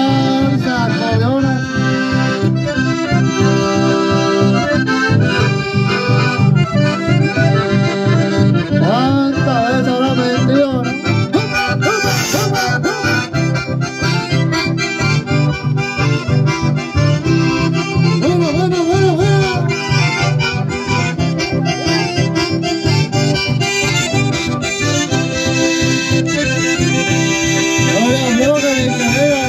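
Live band with button accordions playing a lively tune over strummed acoustic guitar in a steady rhythm, with a voice singing along at times.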